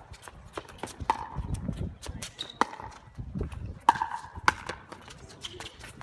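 Pickleball rally: paddles striking the hard plastic ball with sharp, ringing pops, four hits in quick exchange, among fainter scuffs of shoes on the court. Gusts of wind rumble on the microphone twice.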